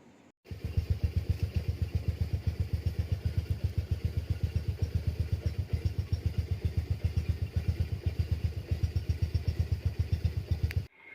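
Domestic cat purring loudly right at the microphone, a fast, even throb that cuts in about half a second in and stops abruptly just before the end.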